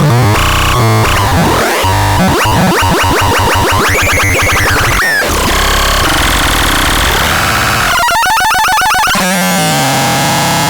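Synthesizer playing a loud, chaotic run of electronic sounds: gliding pitches, fast pulsing and stuttering tones, changing texture every second or two.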